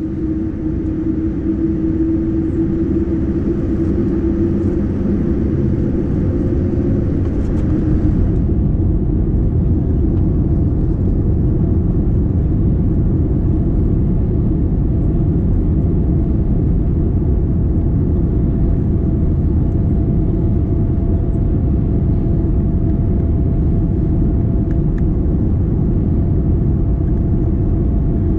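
Boeing 787 Dreamliner's GE GEnx engines spooling up for the takeoff run, heard from the passenger cabin: the rumble builds over the first several seconds, a steady tone and a hiss fade away about eight seconds in, and an even low rumble then holds.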